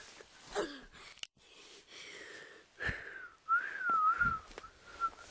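A person whistling a short wavering run of notes that rises and falls in pitch, starting about three seconds in.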